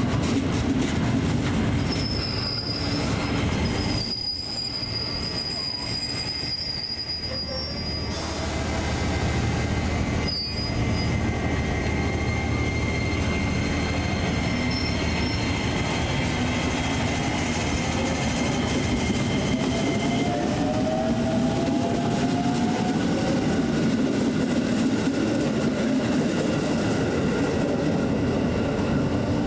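Electric commuter trains running along a station platform: a steady rumble of wheels on rail with long, thin squealing tones from the wheels, and a rising whine about two-thirds of the way through.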